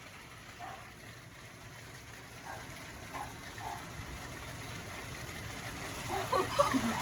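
Hailstorm with heavy rain: a steady rushing, pattering noise of hail and rain coming down that grows gradually louder.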